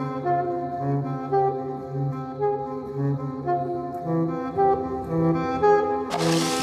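Background music: a melody over a steady, repeating bass note. About six seconds in, a loud hiss of noise starts suddenly over the music.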